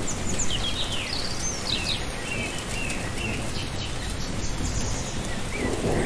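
Several birds chirping and singing over a steady rushing background noise, like a garden nature ambience.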